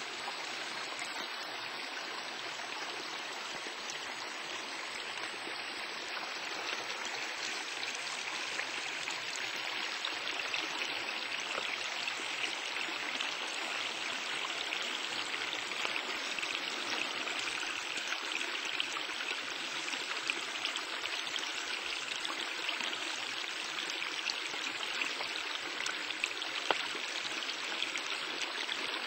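A small forest creek running over stones, a steady rush of water that grows a little louder about a third of the way in.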